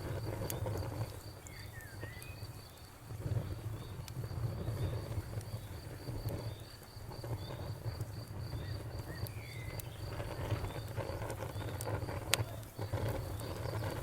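Crickets chirping in a steady, even pulse over a campfire's low rumble and scattered sharp crackles, the loudest crackle near the end. Two short bird chirps come through.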